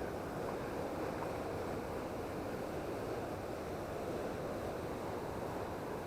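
Steady rushing wind noise, with low choppy buffeting on the microphone.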